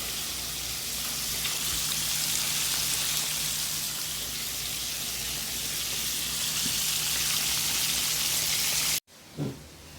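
Pieces of fish frying in hot oil: a steady, even sizzle that cuts off abruptly about nine seconds in.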